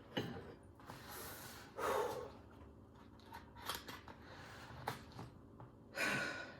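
A box and its packaging being handled and opened: soft rustling and scraping, with louder swishing noises about two seconds in and near the end.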